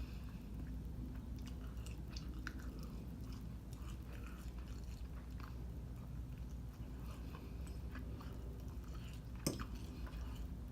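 A person chewing food close to the microphone, with small wet mouth clicks over a steady low hum, and one sharper click near the end.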